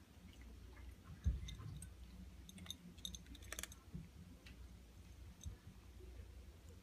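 Two cats eating from a small bowl: faint, irregular chewing and clicking, with a dull bump about a second in.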